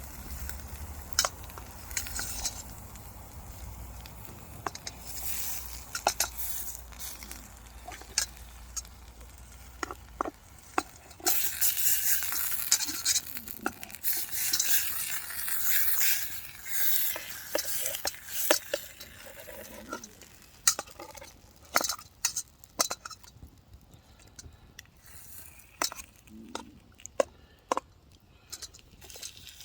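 Steak and potatoes frying in a crowded pan over a campfire: a sizzle that swells loudest a few seconds in and then dies back, with many sharp clicks and taps scattered throughout.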